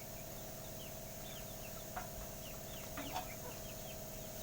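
Birds chirping: many short falling chirps, with two sharper calls about two and three seconds in, over a faint steady hum.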